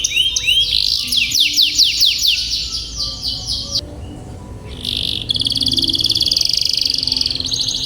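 Domestic canary singing: fast runs of repeated down-slurred notes, then a short break about four seconds in, followed by a long rolling trill.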